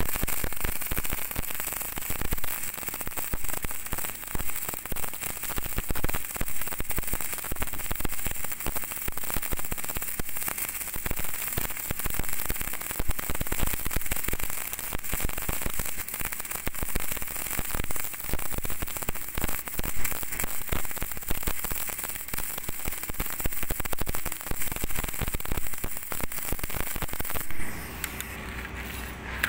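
MIG welding arc crackling steadily as a weld bead is run on steel. The arc cuts off about two seconds before the end, leaving a faint steady hum.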